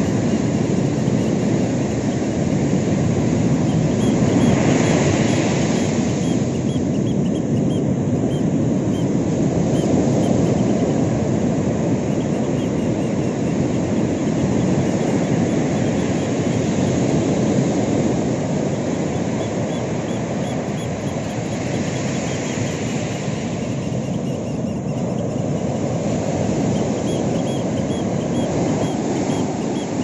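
Ocean surf: waves breaking and washing up a sandy beach as a steady rush of whitewater, swelling louder twice as bigger waves break.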